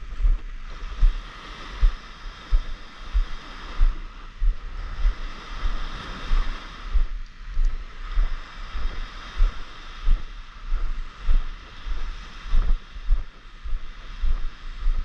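Wind buffeting the microphone in frequent, irregular low thumps, over a steady hiss of water and air.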